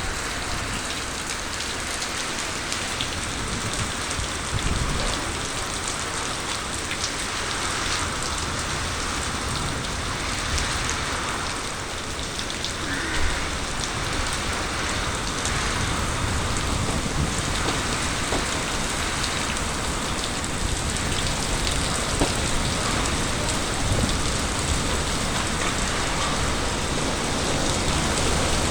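Very heavy rain pouring down steadily, a dense, even hiss of falling water.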